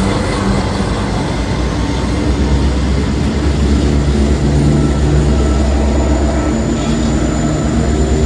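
Freight train passing: the steady running noise of the train with a diesel locomotive's engine note underneath, the low engine drone growing stronger about two seconds in.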